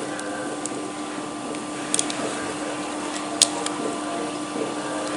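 Steady background hum, with two or three light clicks as a digital caliper's jaws are set against a small metal air fitting.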